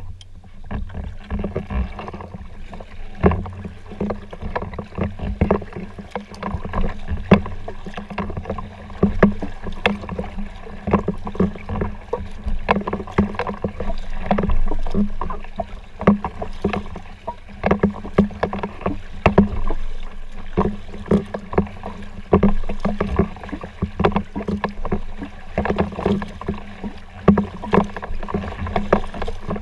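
Sea kayak being paddled: repeated paddle strokes with water splashing, and frequent sharp knocks close to the camera.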